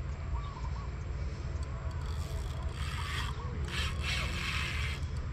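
Fishing reel being cranked while playing a hooked fish: two spells of rasping whirr, one about three seconds in and a longer one from about four seconds, over a steady low rumble.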